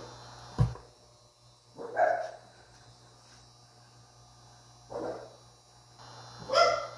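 A dog barking three times off-camera, short separate barks about two seconds in, about five seconds in and near the end, with a dull thump about half a second in.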